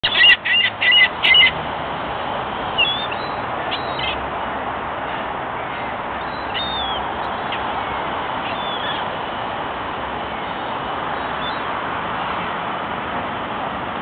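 A flock of gulls calling: a quick run of about five loud, harsh calls in the first second and a half, then scattered single calls every few seconds over a steady background hiss.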